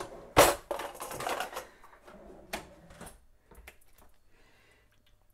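Handling noise from the camera being picked up and moved over a kitchen counter, with objects on the counter being knocked. There is a sharp knock about half a second in, a short run of clatter over the next second, another sharp click about two and a half seconds in, then a few faint ticks.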